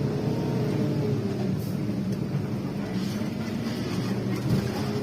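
Bus engine running steadily, a low even hum.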